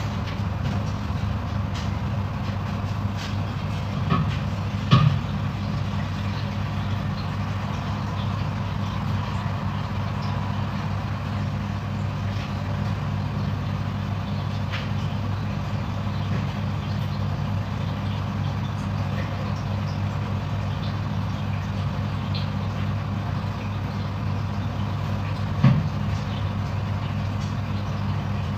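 Steady low machine hum, with a few light knocks: two close together about four and five seconds in and one more near the end.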